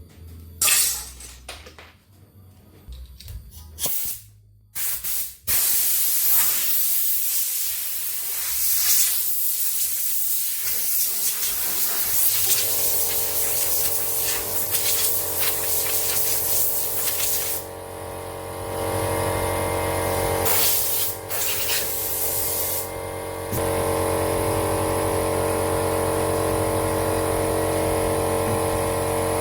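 Workshop noise: a few scattered knocks, then a loud, steady hiss of rushing air or spray about five seconds in. About seven seconds later a steady humming motor joins it and keeps running.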